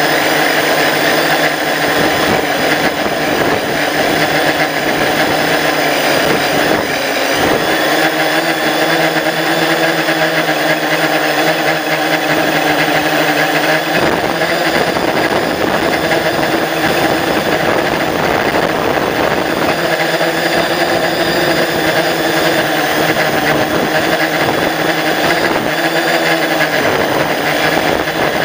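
Multirotor drone's electric motors and propellers running steadily, heard close up from the drone's own onboard camera, a loud whine of several pitches that shift slightly every few seconds as the drone adjusts its flight.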